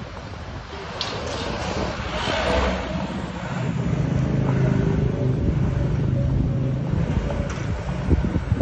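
A motor vehicle's engine running close by: a steady hum comes in about three and a half seconds in and fades near the end. Underneath is the low rumble of riding along the road, with a couple of knocks near the end.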